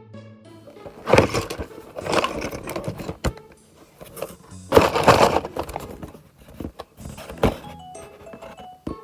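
Light background music with loud bursts of rustling and handling noise, about a second, two seconds and five seconds in, and a few sharp clicks: packaging and toy pieces being handled during an unboxing.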